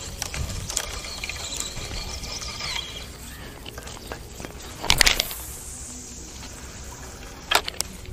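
A splash on the water about five seconds in, with lighter water sounds around it and two sharp clicks near the end.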